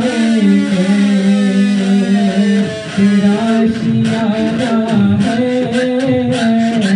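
Devotional song in the manqabat style, a sung melody drawn out on long held notes with slightly wavering pitch.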